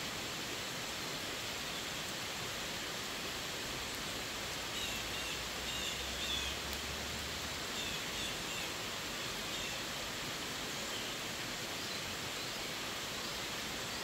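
Steady heavy rain falling on leafy trees and a wet paved road, an even hiss throughout. A bird chirps several times in the middle, and a faint low rumble sits under the rain for a few seconds at the same time.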